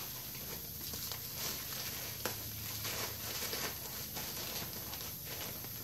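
Plastic wrapping rustling and crinkling as packs of new clutch discs are handled and unwrapped, with one sharper click about two seconds in. A steady low hum runs underneath.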